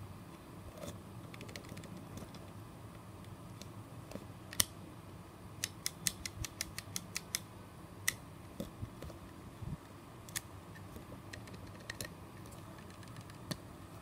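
Plastic LEGO pieces of a mini colour combination lock clicking as it is handled and worked: a sharp single click, then a quick run of about eight clicks, with scattered single clicks before and after.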